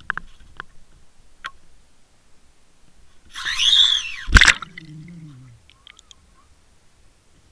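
A camera on a baited fishing rig going into the sea: a brief rushing swish, a hard splash as it hits the water a little past four seconds in, then bubbling gurgles that drop in pitch as it sinks.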